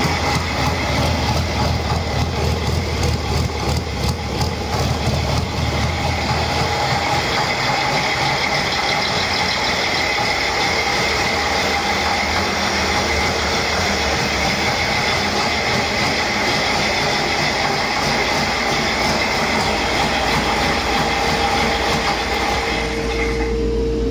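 2006 Cummins ISB 5.9-litre EGR inline-six turbodiesel running steadily on an engine test stand.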